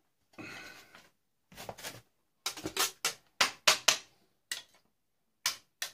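Parts of an old tube television clattering as it is taken apart: a short scrape about half a second in, then a string of sharp, separate metallic knocks and clinks.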